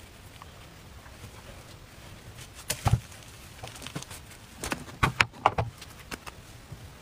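Scattered knocks and clicks of handling an electric crepe maker and food on a wooden board: a short cluster about three seconds in and a louder group around five seconds in as the crepe maker is lifted and tipped.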